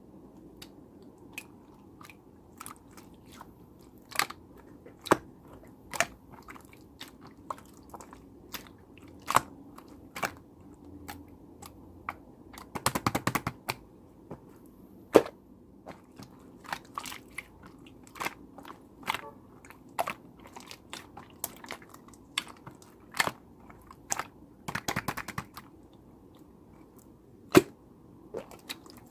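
Slime being squeezed and pressed by hand, giving irregular sharp pops and clicks, with two short bursts of rapid crackling, one about halfway through and one near the end.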